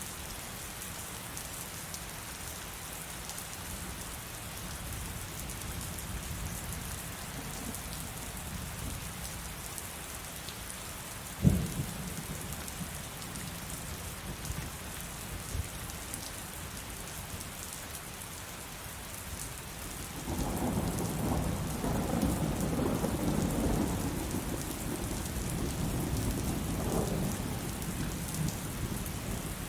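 Steady heavy rain hissing throughout, with one sharp crack about a third of the way in and a long rolling rumble of thunder from about two-thirds in, fading slightly near the end.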